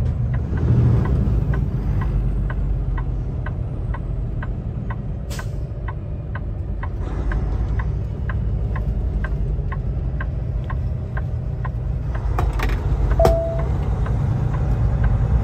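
Inside a Kenworth T680 semi's cab: the engine runs with a low, steady drone while the turn signal clicks at about three clicks a second as the truck turns into a truck stop. Near the end the clicking stops and a short beep sounds.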